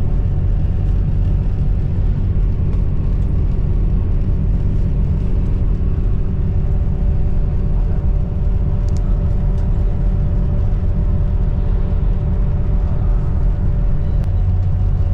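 Steady rumble of a moving coach bus heard from inside the passenger cabin: engine and road noise with a low, even hum and a couple of faint rattles.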